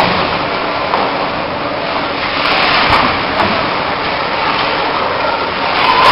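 Steady din of the crowd in an ice hockey rink, rising a little near the end.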